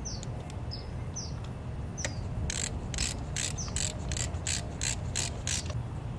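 Ratchet wrench tightening a bolt on a dirt bike, with a run of about ten ratcheting strokes at roughly three a second that starts about two and a half seconds in.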